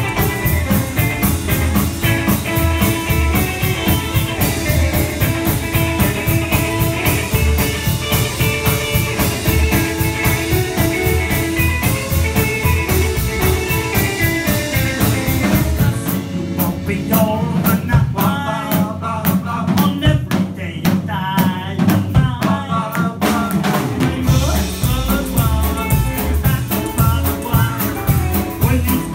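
Live rock 'n' roll band playing: upright double bass, drums, acoustic and electric guitars, with a singer. About halfway through the low end drops away for several seconds, leaving drum hits and higher guitar or lead lines, before the full band comes back in.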